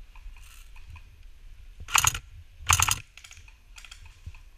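Two short full-auto bursts from an airsoft PPSh electric gun, each a quick rattle of shots, less than a second apart, followed by a few fainter clicks.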